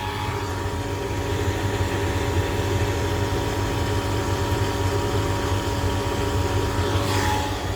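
Kamco power flushing machine's pump motor running with a steady hum over a low rumble, with a brief rushing swell near the end.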